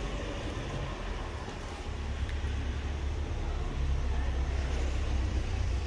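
A low, steady rumble over outdoor background noise, stronger from about two seconds in until just before the end.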